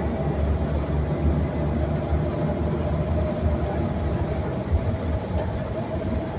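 Steady low rumble and running noise inside a moving city bus, with a faint steady whine.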